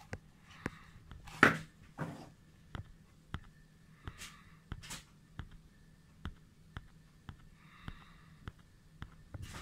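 A hand handles a telescope zoom eyepiece, making short rustles and brushes; the loudest comes about one and a half seconds in. Faint, regular ticks about twice a second run underneath.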